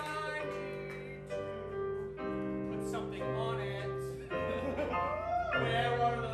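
Piano or keyboard playing slow held chords that change about once a second, with a brief gliding sung or hummed line about halfway through.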